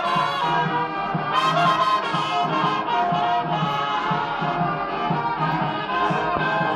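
Brass band playing a tune together: flugelhorns carry the melody over a pulsing bass line from King sousaphones.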